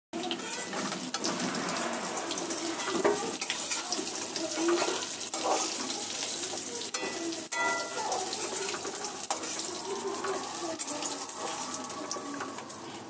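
Kitchen tap running steadily into a sink, with a few light clicks, tapering off near the end.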